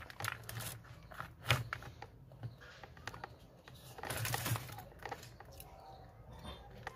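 Handling noise as the camera is repositioned over a workbench: scattered light clicks and taps, the sharpest about a second and a half in, and a longer rustle around four seconds in.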